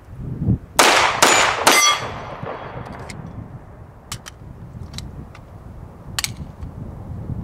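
Three pistol shots from a CZ SP-01 fired in quick succession, under a second apart, with a metallic ring after the third like a steel target being hit. A few faint sharp clicks follow.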